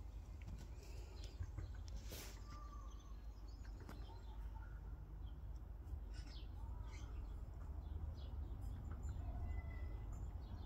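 Birds chirping and calling with short, scattered notes over a steady low rumble, with one sharp click about two seconds in.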